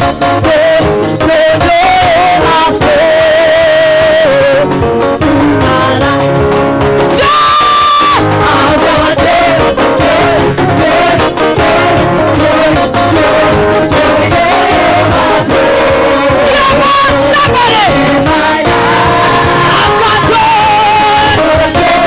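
Gospel praise-and-worship music: singing over a live band, loud and steady, with one long held note about seven seconds in.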